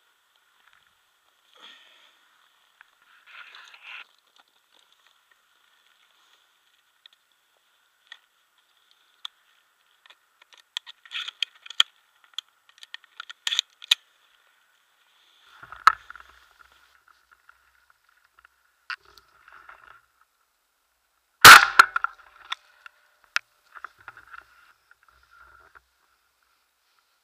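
Scattered clicks and knocks from a shotgun and its barrel-mounted camera being handled, with one much louder sharp crack about 21 seconds in.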